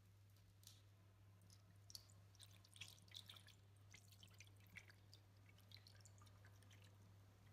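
Faint pattering and splashing of liquid poured from a glass bottle into a glass baking dish, onto metal pistol parts lying in it, with a steady low hum underneath.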